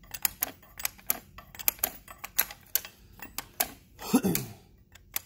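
Open-end wrench turning a loosened fuel line nut on a Detroit DD15 injector line: a string of sharp, irregular metal clicks, about three or four a second, as the wrench is swung and reset on the nut.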